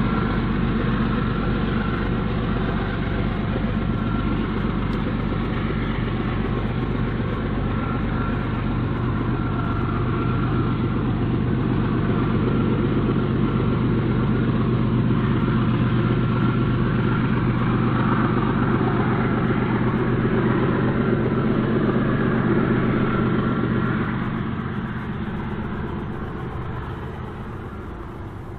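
Diesel freight locomotive engines running steadily, then fading away over the last few seconds.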